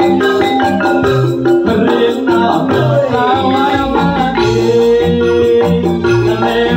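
Live band music: an instrumental passage with a keyboard melody over bass notes and a steady beat, and a note gliding downward a little over two seconds in.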